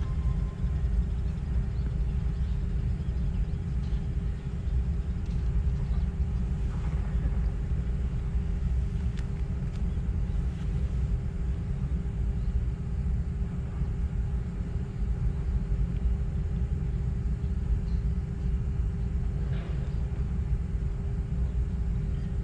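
Steady low rumble with a constant hum running under it and a few faint clicks.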